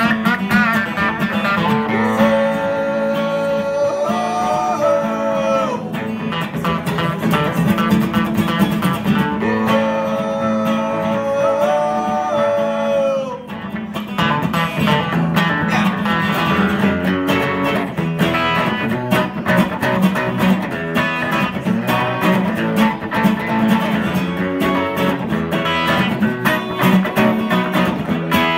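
Live music from an electric guitar and a strummed acoustic guitar playing an instrumental passage between verses. A long held melody line bends upward twice in the first half.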